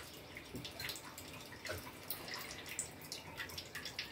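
Milk simmering in a steel pot of rice-flour dumplings: faint bubbling with scattered small pops.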